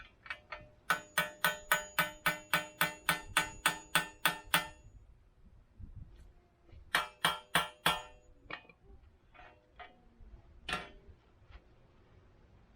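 Rapid hammer blows on metal with a ringing note: a run of about fourteen strikes at about four a second, then four more a couple of seconds later, and a few scattered knocks.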